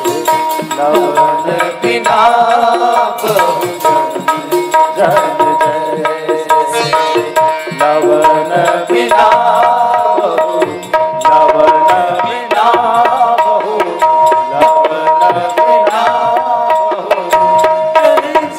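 Instrumental interlude of a devotional bhajan: tabla playing a quick rhythm under a melody with long held notes.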